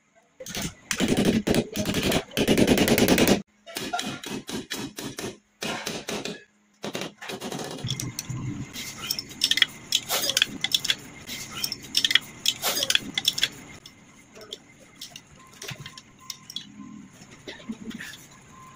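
Steel wall bracket being fitted onto expansion anchor bolts: a loud run of rapid metal knocking in the first few seconds, then scattered clinks and scrapes of an open-end spanner tightening the bolt nuts against the bracket.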